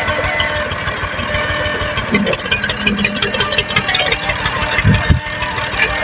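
Massey Ferguson 240 tractor's three-cylinder diesel engine running steadily at low speed, with an even, rapid diesel knock.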